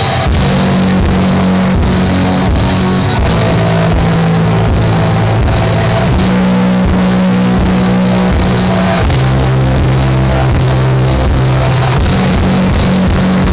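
A hardcore punk band playing live and loud: distorted electric guitars, driving drums, and a bass holding long low notes that change every second or two.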